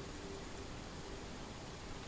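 Steady background hiss with a faint, wavering hum; no distinct event.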